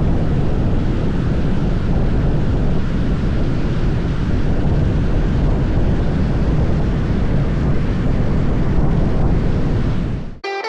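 Wind buffeting the microphone: a loud, steady low rumble that cuts off suddenly near the end as guitar music comes in.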